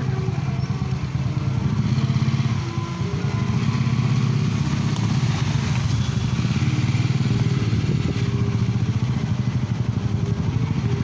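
A motor vehicle engine running close by with a steady, low, rapid pulsing, in street traffic.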